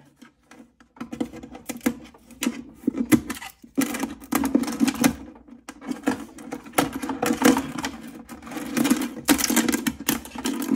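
Hand scrubbing and scraping at a dried spill stuck to the back panel of a cabinet shelf: a rapid, uneven run of rubbing strokes that starts about a second in.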